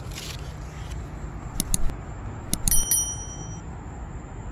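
Quick clicks followed by a short bright bell ding about two and a half seconds in, the sound effect of a subscribe-button animation, over a steady low background rumble.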